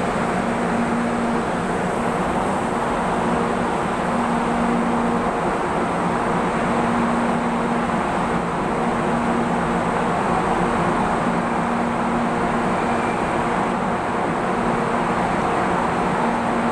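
Steady hum and rumble of an MRT-3 light-rail train standing at a station platform, with a low steady tone under an even noise and no change in pitch.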